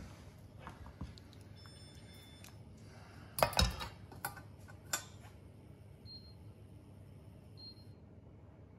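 A metal ladle clanks and scrapes against a saucepan and a stainless steel strainer as fish bone sauce is ladled and strained, the loudest clatter about a third of the way in. Near the end a kitchen appliance gives two short high beeps, a second and a half apart.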